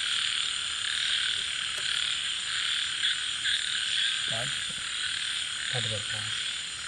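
A chorus of frogs calling continuously, with a steady, unbroken din of overlapping croaks.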